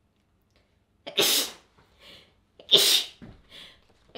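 A person sneezing twice in quick succession, about a second and a half apart, each sharp sneeze followed by a short softer sound; a third sneeze begins right at the end.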